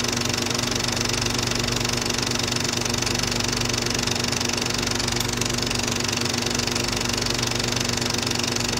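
Steady mechanical whirring and fast clatter of a Super 8 film mechanism running, over a constant hum.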